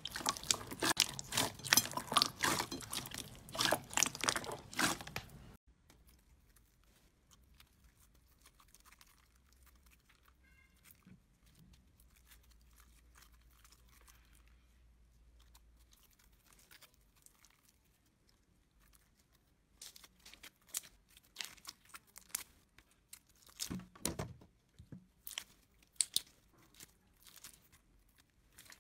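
Hands pressing and squeezing clear slime, with dense sticky crackling and popping clicks for the first five seconds or so. Then a long stretch of near silence, and in the last several seconds scattered crunchy clicks and crackles as chunks of stiff white slime are handled.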